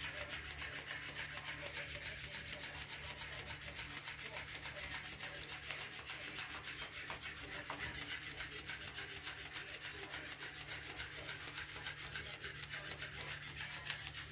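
Motorized flopping-fish cat toy running, its plush fish body flapping and rubbing on the carpet in a fast, even rhythm.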